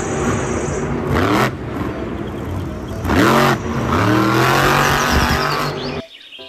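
Blue Thunder monster truck engine revving up and down repeatedly. It stops abruptly near the end.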